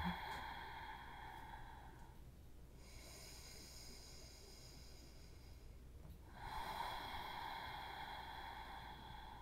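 A person's slow, deep breathing, faint: an exhale fading out about two seconds in, an inhale from about three to six seconds, then another long exhale.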